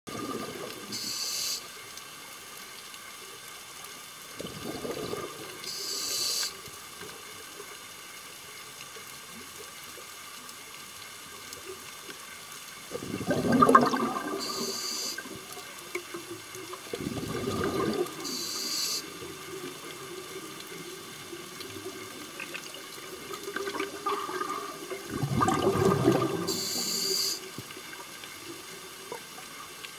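A scuba diver breathing through a regulator underwater. Four times, a breath out sends a rush of bubbles lasting a second or two, each followed by a short, high hiss as the next breath is drawn in, all over a faint steady hum.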